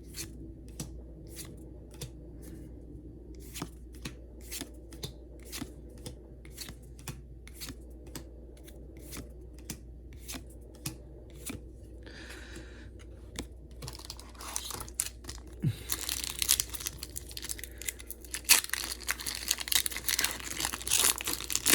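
A run of light clicks, about two to three a second, from trading cards being handled. In the last several seconds this gives way to the crinkling and tearing of a foil Pokémon booster pack wrapper being opened.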